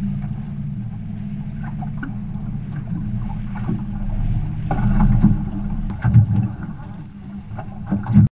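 Wind rumbling on the microphone and lake chop against an aluminum fishing boat, with a few sharp knocks and clicks. It swells louder about halfway through and cuts off suddenly at the end.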